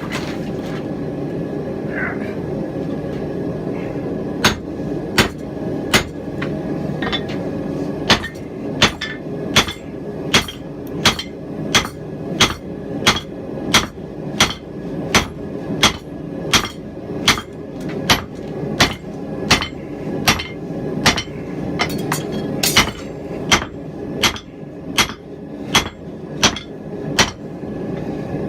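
Hand-hammer blows ringing on a hot steel rounding-hammer head as its cheeks are forged out. The blows come a few at a time at first, then settle into a steady beat of about three every two seconds, over a steady low roar.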